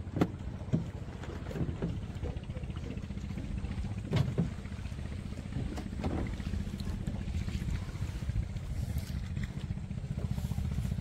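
Small wooden fishing boat's engine running steadily under way, a fast even chugging beat. Two brief louder sounds stand out, near the start and about four seconds in.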